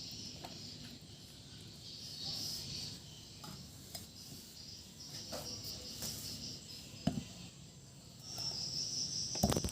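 Faint insect chirping in the background, swelling twice, with a few short sharp clicks.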